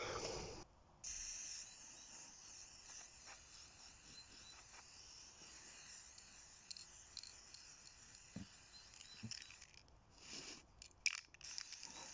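Aerosol spray-paint can hissing faintly as paint is sprayed, with a couple of short breaks near the end where the nozzle is let go and pressed again.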